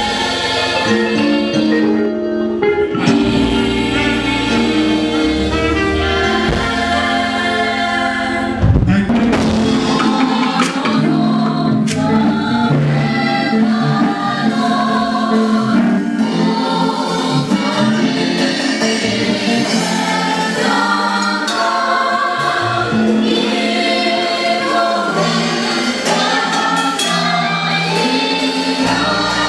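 A choir singing gospel music with instrumental backing, loud and steady throughout, with a fresh, fuller entry about nine seconds in.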